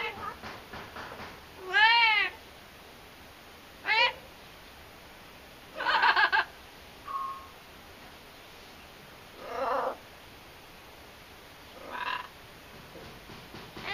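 Amazon parrot calling in a string of short calls about every two seconds: arching, meow-like whistled calls, a harsher squawk, a brief thin whistle, and lower rough calls.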